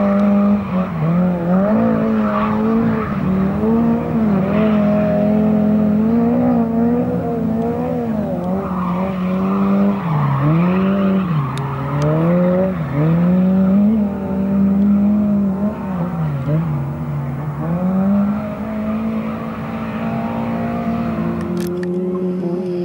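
A classic Lada's engine held at high revs while the car drifts, its pitch dipping briefly and climbing back several times as the throttle is lifted and reapplied, with tyres squealing on the concrete.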